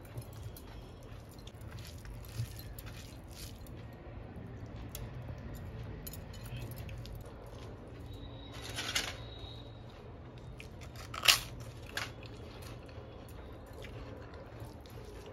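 A hand mixing rice with curry on a steel plate: quiet scraping and squishing of fingers against rice and metal, with scattered short clicks. A brief noisy burst comes about nine seconds in, and the loudest sharp click about eleven seconds in, all over a low steady hum.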